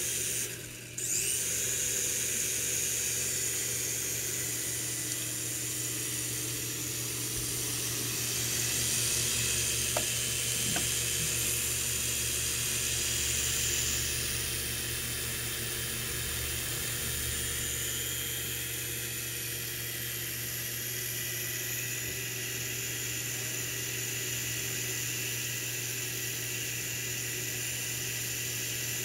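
Small electric motors and rotor blades of a toy remote-control helicopter whirring steadily at a high pitch. The sound dips briefly about a second in and comes back. It is a little louder for a few seconds in the middle.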